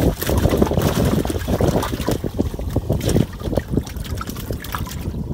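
Water splashing and sloshing in a boat's flooded live-fish well, in many short irregular splashes, with wind rumbling on the microphone.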